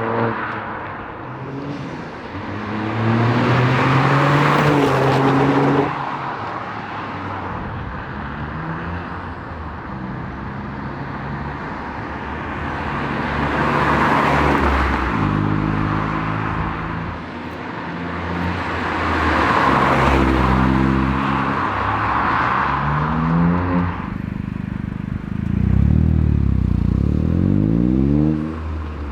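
Toyota GR Yaris's turbocharged 1.6-litre three-cylinder engine, heard through a Milltek Sport GPF-back exhaust, accelerating through the gears. The note climbs and drops sharply at each upshift several times, with a quicker rise and fall near the end.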